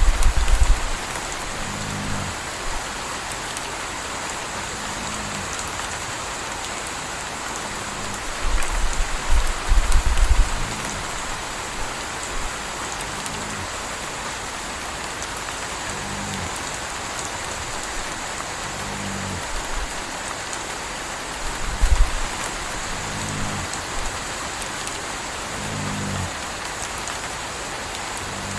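Steady rain falling, with a puppy snoring in short, low snores about every three seconds. A few louder low rumbles come through near the start, about a third of the way in, and about three-quarters of the way through.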